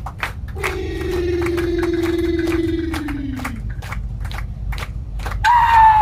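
A man's long held vocal call, a dance call in a traditional Aboriginal men's dance, steady for about three seconds before sliding down in pitch. Near the end comes a loud, high call that falls steeply. Sharp clapstick clicks are scattered throughout over a low hum.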